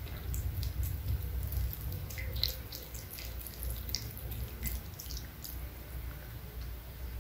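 A cat eating raw minced meat from a bowl: irregular wet clicks and smacks of chewing and licking, thinning out near the end as it lifts its head, over a low steady rumble.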